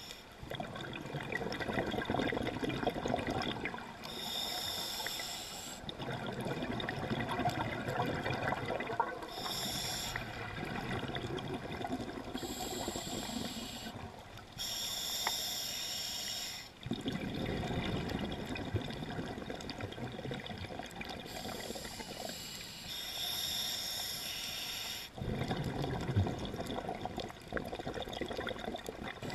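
A scuba diver breathing through a regulator underwater. Each breath in is a hissing rush, and each breath out is a few seconds of bubbling gurgle. The cycle repeats about every five to six seconds.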